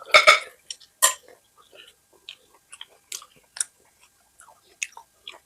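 Close-miked chewing and wet mouth smacks while eating mutton curry: a loud crackly bite or smack right at the start and another about a second in, then irregular small smacks and clicks.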